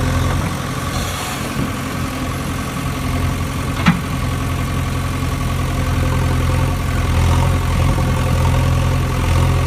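A vehicle engine idling steadily with a low hum, and a single sharp click about four seconds in.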